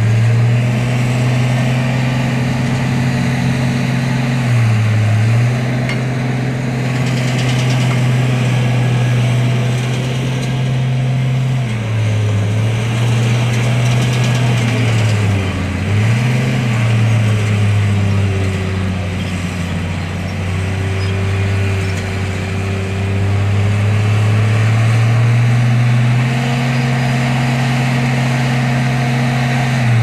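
Heavy construction machine's diesel engine running continuously with a low hum, its pitch dipping briefly now and then and settling at slightly different speeds.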